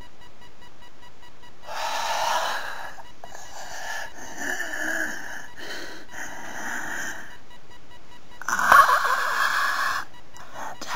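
A person's raspy, wheezing breaths, several long ones in a row, the loudest near the end.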